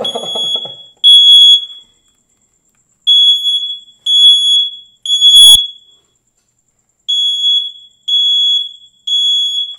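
Smoke alarm of a combination smoke and carbon monoxide detector sounding in full alarm, set off by smoke from burning paper. It gives a loud, steady, high beep in groups of three with a pause between each group, the three-beep pattern that signals smoke. A brief laugh at the start and a single knock about five and a half seconds in.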